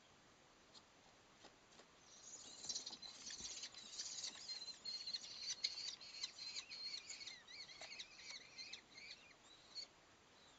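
Kestrel chicks begging for food with a chorus of shrill, high-pitched wavering calls as a parent feeds them, starting about two seconds in and dying away near the end. A few faint taps come before the calling.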